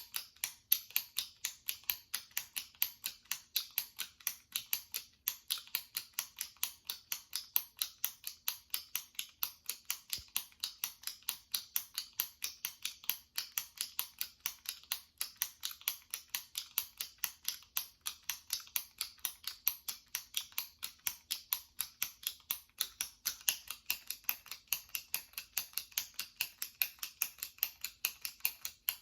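Push button on top of a jumbo retractable pen clicked repeatedly at an even pace, about three to four sharp clicks a second.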